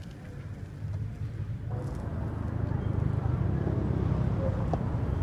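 Street background noise: a low rumble of traffic that grows louder about two seconds in, with faint voices.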